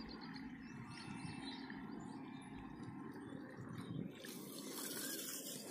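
Faint outdoor background noise with no distinct event. The hiss gets brighter about four seconds in.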